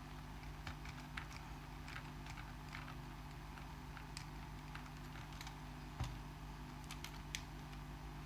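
Faint small clicks and taps of small RC-car parts being handled as a wheel hub is taken apart by hand, with one louder knock about six seconds in, over a steady low hum.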